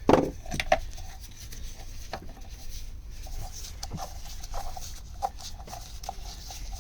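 Metal engine parts and tools being handled on a workbench: a loud knock right at the start, then scattered lighter clinks and clicks.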